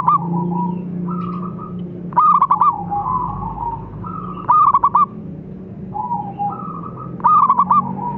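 Zebra dove (perkutut) singing its cooing song: four loud rolling phrases of quick repeated notes, about every two and a half seconds, with softer notes between them.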